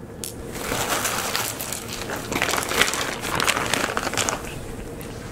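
Clear plastic bag crinkling as it is handled, a run of irregular crackles that fades out near the end.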